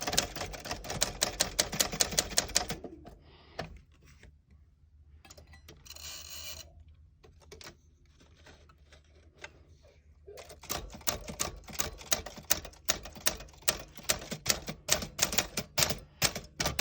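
Typewriter being typed on: quick runs of sharp key clacks, stopping for several seconds in the middle, then starting again.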